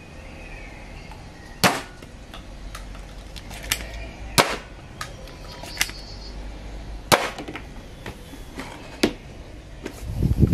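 Nerf N-Strike Elite XD Triad EX-3 spring blaster test-fired: three sharp snaps about two and a half seconds apart, with lighter clicks and taps between them. A low thud near the end.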